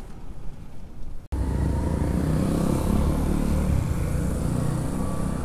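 City street traffic heard from a moving bicycle: a low road and wind rumble, then after an abrupt break about a second in, a louder rumble of a nearby motor vehicle's engine with wind hiss.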